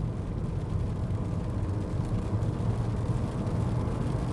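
SsangYong Tivoli's 1.5-litre turbocharged petrol engine pulling under full-throttle acceleration, heard from inside the cabin with road noise. The steady drone grows gradually louder.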